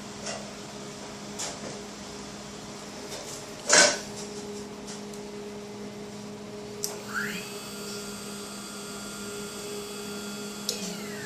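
Small hobby CNC machine running: a steady low hum throughout, a brief loud noise about four seconds in, then its stepper motors whine, rising in pitch as an axis speeds up, holding steady, and falling again as it slows near the end.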